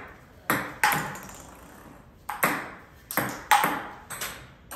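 Table tennis smashes: a ping-pong ball struck hard with a Stiga Performance paddle and bouncing on the table, sharp clacks coming mostly in quick pairs, each with a short ring after it.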